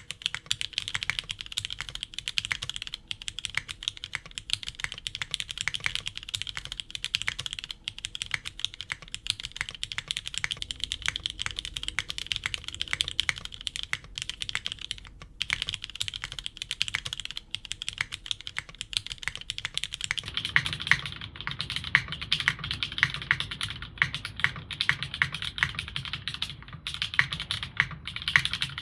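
Fast, continuous typing on a Glare TKL mechanical keyboard with vintage Cherry MX Black linear switches, a polycarbonate half plate and GMK Redline keycaps, a dense run of key clacks. About two-thirds of the way through, the keystrokes turn deeper and louder.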